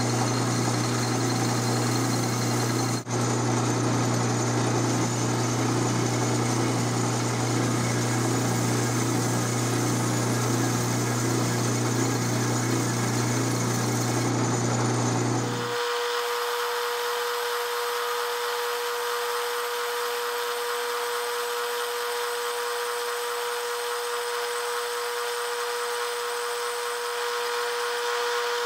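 Metal lathe running under power while a carbide insert turns a taper on a steel workpiece: a steady motor hum with machining noise. About halfway through the sound changes abruptly to a thinner, higher steady whine without the low hum.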